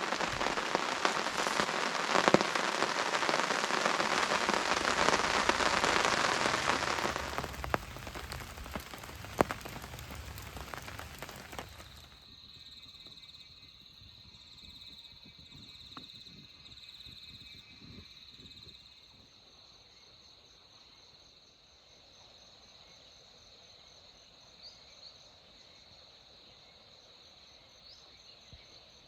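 Heavy rain falling steadily, then easing off. About twelve seconds in it gives way abruptly to a quiet scene with the steady, high, thin chirring of insects.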